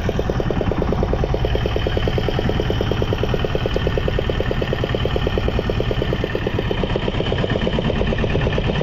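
Small boat engine with a long tiller shaft running steadily at trolling speed, a fast even pulsing beat.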